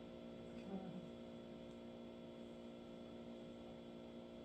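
Faint, steady electrical hum made of several held tones.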